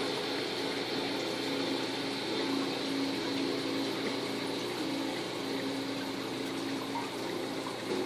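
Steady trickling splash of water from the outflow of AquaClear hang-on-back aquarium filters, with a low hum that comes and goes.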